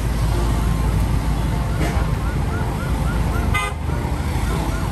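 Heavy container truck's diesel engine rumbling steadily in busy road traffic, with a short horn toot about three and a half seconds in.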